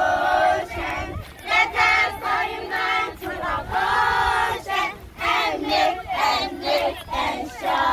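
A group of children singing together in unison, in short repeating phrases with held notes.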